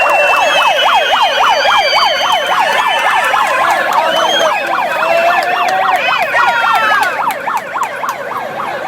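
Several sirens sounding together: one on a fast yelp, rising and falling about four times a second, with others wailing more slowly over it. They ease off a little near the end.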